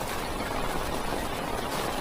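Heavy rain pelting a stationary car's roof and windows, heard from inside the car as a steady dense patter.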